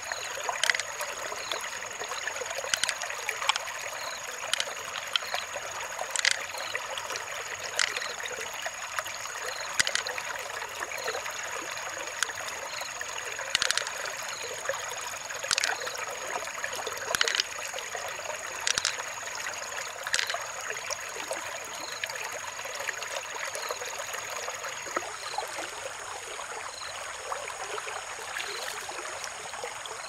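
Shallow stream water trickling steadily, with sharp clicks every second or two through the first two-thirds as mussel shells are handled and pearls are taken out and laid in an open shell.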